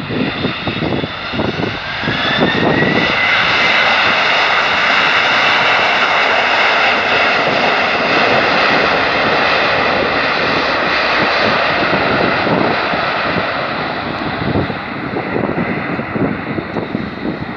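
Boeing 767-300ER's twin jet engines spooling up into reverse thrust on the landing roll. A rising whine climbs over the first few seconds into a loud, steady jet roar that eases off after about twelve seconds. Wind buffets the microphone throughout.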